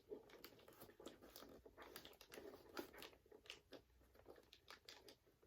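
Faint, scattered clicks and crinkles of twist ties and box packaging being handled as a tie is worked back through a hole in the box.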